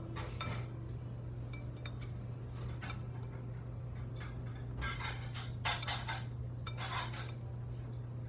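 Plates and cutlery clinking at a dining table, scattered light clicks with a brief cluster of clatters about five to seven seconds in, over a steady low hum in the room.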